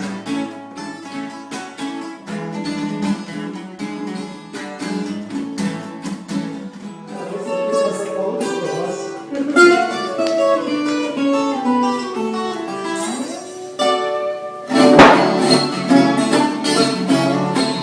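Instrumental break on a Brazilian viola caipira: runs of plucked notes picked out in a moda de viola style, with a loud strummed chord about fifteen seconds in.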